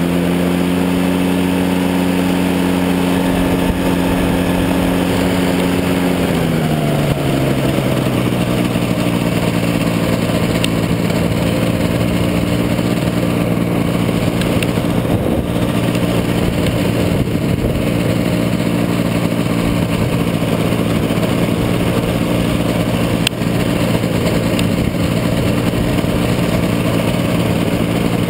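Powered parachute's engine and propeller running at steady power, then throttled back about six seconds in and running steadily at a lower pitch, with wind rushing over the helmet microphone.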